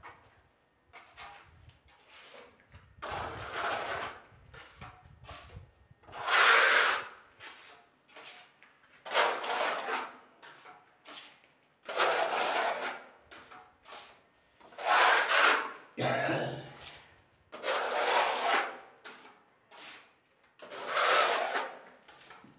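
Sandpaper rubbing down dried wall putty on a plastered wall: long scraping strokes about every three seconds, each lasting about a second, the sanding that smooths the putty coat.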